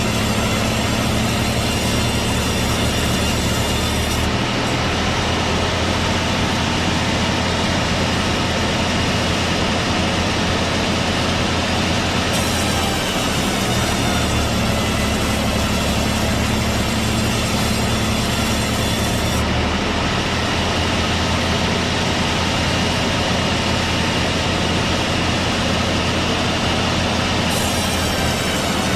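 Sawmill machinery running with a steady low hum while sawing a teak log. A high hissing whine comes and goes in alternating stretches of several seconds.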